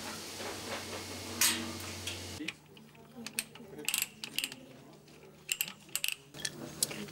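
A steady hum and hiss for about two and a half seconds, then a run of light metallic clicks and clinks as a threaded galvanized plug, hemp wound on its threads, is turned into a malleable-iron pipe tee.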